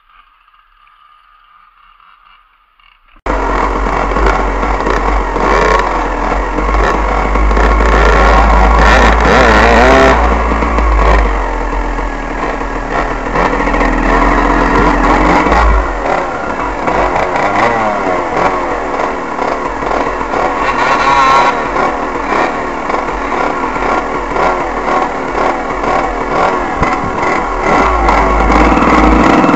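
Dirt bike engines revving hard and climbing and falling in pitch as the bikes ride off-road, heard from an onboard camera with heavy wind rumble on the microphone. A faint stretch comes first, and the sound cuts in suddenly about three seconds in.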